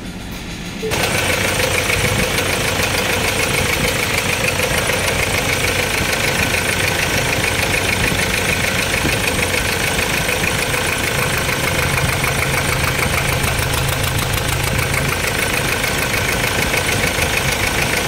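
2.2-litre diesel engine idling with a steady, rapid knock, heard up close in the engine bay. It starts abruptly about a second in.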